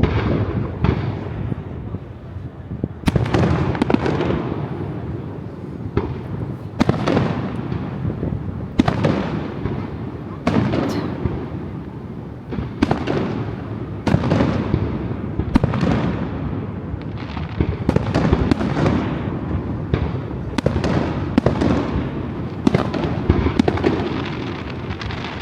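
Aerial fireworks display: shells bursting in quick succession, a sharp bang every second or two, each trailing off in a low rolling rumble.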